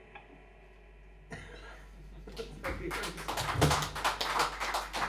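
A small audience clapping in a small room, starting about two seconds in and growing, after the last guitar chord of a song dies away.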